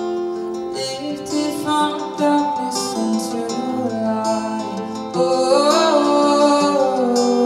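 Acoustic guitar playing a song accompaniment. About five seconds in, a woman's voice comes in over it, singing louder held notes that waver in pitch.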